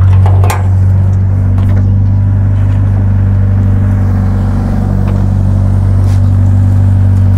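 Diesel engine of a Doosan mini excavator running steadily at a constant pitch while its arm and bucket swing.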